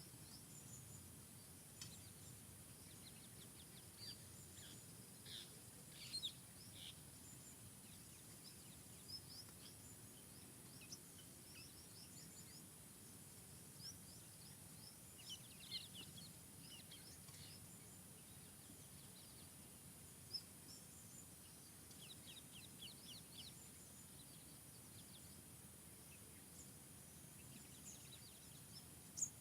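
Faint forest ambience with songbirds calling now and then: scattered high chirps and short rapid trills, over a steady low background hiss.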